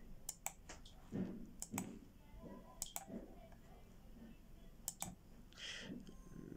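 Four pairs of sharp clicks, a computer mouse's button pressed and released as each letter is tapped on a phone's on-screen keyboard.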